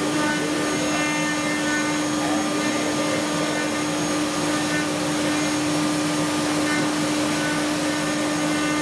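Milling machine running as its end mill shapes a wooden block: a steady whine over a rushing noise, unchanging throughout.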